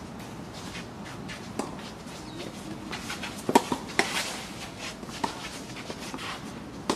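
Tennis balls struck by rackets and bouncing on an omni court during a doubles rally: a string of sharp pocks, the loudest about three and a half seconds in.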